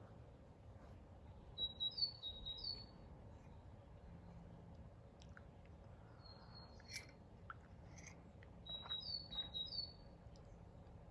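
A small songbird singing: a short phrase of quick, high chirps alternating between two pitches, given twice about seven seconds apart, with a few single calls in between.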